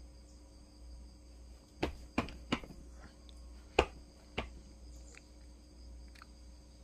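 A small dog gnawing a chew held between its paws: a handful of sharp clicks and cracks between about two and four and a half seconds in. A steady high-pitched whine and a low hum sit underneath.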